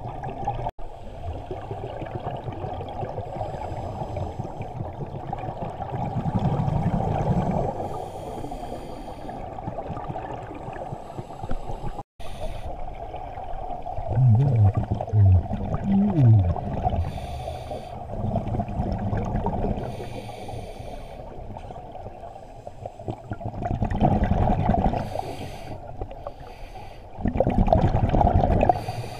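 Scuba diver breathing through a regulator underwater, muffled: a faint hiss on each inhale and a louder rush of exhaled bubbles every several seconds. A brief low, wavering tone sounds about halfway through.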